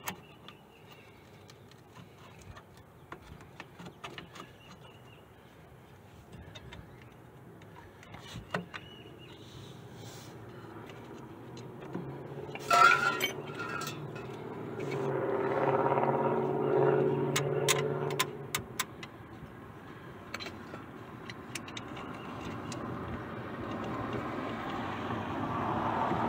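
Light metallic clicks and clinks as drum brake shoes and their springs and hardware are handled, with a sharper clatter about halfway through. A vehicle engine swells past soon after, and another vehicle sound rises near the end.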